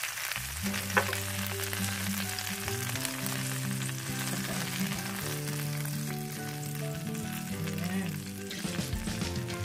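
Chicken thighs and oil sizzling in a hot grill pan, a steady frying hiss, with a single sharp click about a second in. Background music plays over it.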